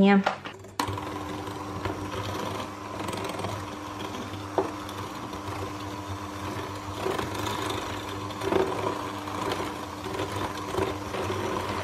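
Bosch CleverMixx 300 W electric hand mixer switched on about a second in and running steadily. Its wire beaters cream butter and sugar in a glass bowl, with a few brief knocks.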